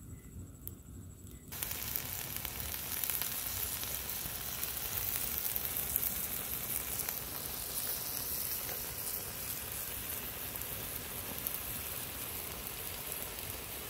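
Small river clams (hến) sizzling steadily in a wok over a wood fire as they stir-fry with lemongrass and chilli. Their shells have opened, the sign they are cooked. The sizzling cuts in suddenly about a second and a half in.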